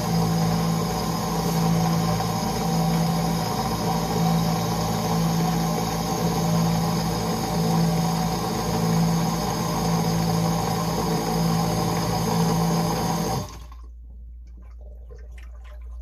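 Sump pump running with a steady hum as it pumps out the test water poured into the pit, then shutting off suddenly about thirteen seconds in once the pit is emptied. Faint dripping follows.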